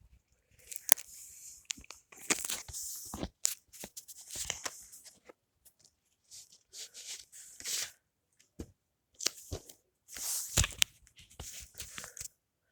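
Plastic shrink wrap on a Blu-ray case being torn and crinkled in irregular bursts, with sharp clicks among them.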